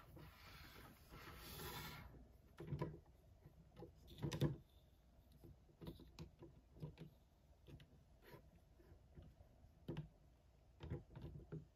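Faint hand-handling of toys and packaging: a rustle for the first two seconds, then scattered light taps and knocks, the loudest about four seconds in.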